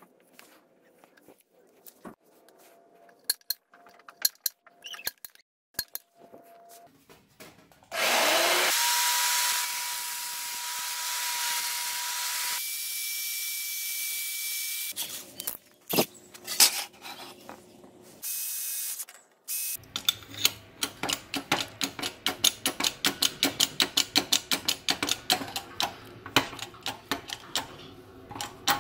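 Shop tool sounds: scattered handling clicks, then a power tool whines up about eight seconds in and runs steadily for several seconds. A fast, even run of clicks at several a second fills the last third.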